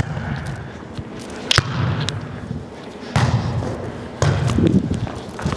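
A volleyball struck back and forth with forearm passes: several sharp thuds of ball on arms, one or two seconds apart.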